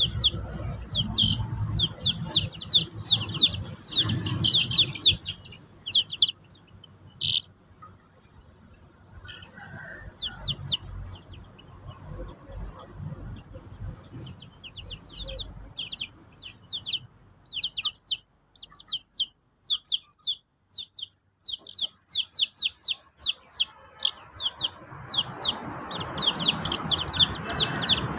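Young chickens peeping: quick runs of short, high, falling calls. The calls thin out for several seconds midway and then come thick again near the end, over a low background rustle.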